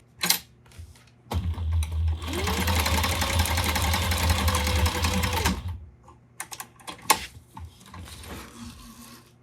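Sewing machine stitching a seam in one run of about four seconds. Its motor whine rises as it speeds up and drops as it stops. A few light clicks follow.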